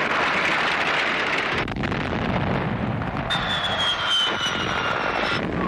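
Battle sound effects in an animated film: a shell burst by a tank runs into a steady rushing roar. From about halfway through, thin high whistles slide slowly downward.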